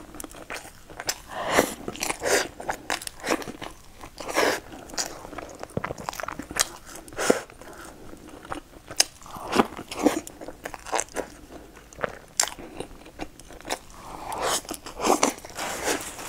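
Close-miked eating: biting into and chewing a layered pastry dipped in white cream, with crunches and mouth smacks coming at irregular moments.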